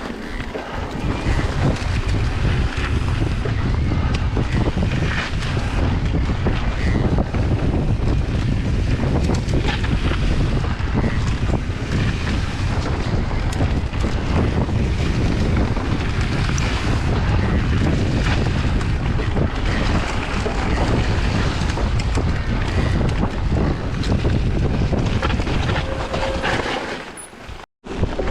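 Wind buffeting the microphone of a camera on a moving mountain bike, over the rumble and rattle of tyres and bike on a rough trail. The sound cuts out for a moment near the end.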